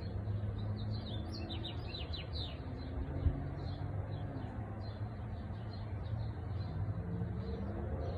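Birds chirping, with a quick run of short high notes about two seconds in and scattered chirps after, over a steady low rumble; a single click a few seconds in.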